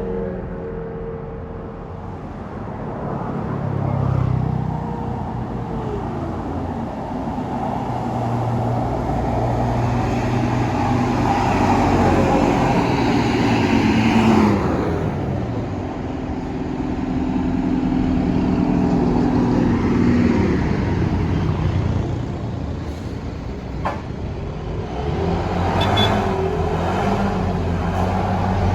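Buses and other road traffic passing close by, their engine notes dropping in pitch as each goes past; the loudest pass is about halfway through.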